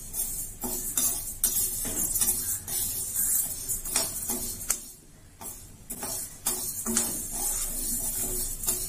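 Metal spatula stirring split moong dal as it dry-roasts in a metal kadai: a dry rattle of the grains with scrapes and clinks of the spatula against the pan, easing into a brief lull about five seconds in.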